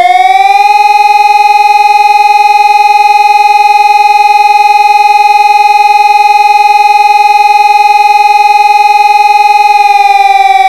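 Helin HES 600 civil defense siren sounding: the tone finishes rising to full pitch within the first second, holds one steady loud pitch, then begins to wind down in pitch near the end.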